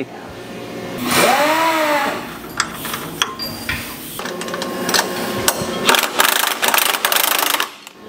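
Power wrench running in bursts as the rear suspension is taken apart. A short run about a second in rises and falls in pitch, and a longer rapid rattling run goes from about the middle to near the end.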